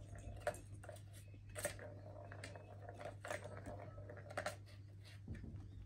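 Kittens pawing at a plastic ball-track tower toy: several sharp, separate plastic clicks and taps spread over the few seconds, faint, over a steady low hum.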